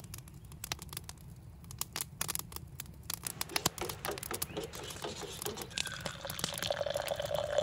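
A metal spoon stirring coffee in a stainless steel camp percolator pot, making irregular light clicks and scrapes against the metal. A faint steady tone comes in near the end.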